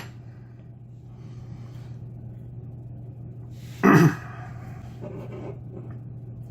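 One loud, sudden burst of breath from a man with a frog in his throat, about four seconds in, over a steady low hum; faint handling noises before it.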